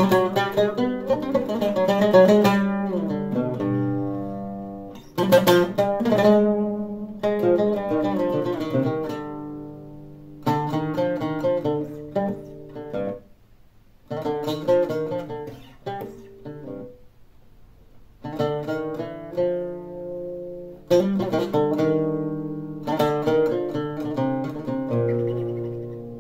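Solo lavta, the fretted Turkish lute, played freely as a concerto cadenza in makam style, opening in Hicazkâr on Rast. It plays fast plucked runs and ringing chords in separate phrases, with short pauses between them about halfway through.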